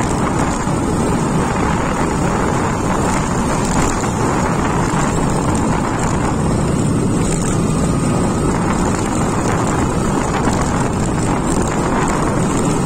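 Motorcycle under way, its engine running at a steady pace, with wind noise on the microphone.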